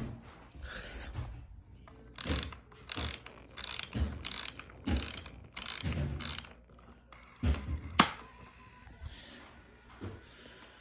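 Toy box packaging being opened by hand: a run of short crackling rips and clicks, about two a second, then a sharp snap about eight seconds in.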